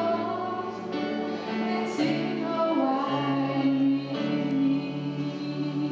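A woman singing solo through a microphone, holding long, steady notes over a lower sustained accompaniment.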